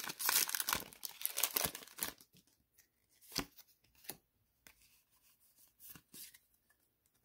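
Foil wrapper of a Pokémon Sun & Moon Burning Shadows booster pack being torn open and crinkled for about two seconds, then a few soft clicks and rustles as the cards are slid out and handled.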